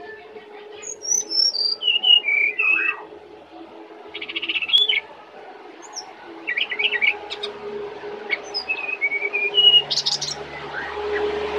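Brown-chested jungle flycatcher singing: a run of varied clear whistled phrases with pitch glides, and a short buzzy trill about four seconds in. Near the end a low rumble comes up underneath.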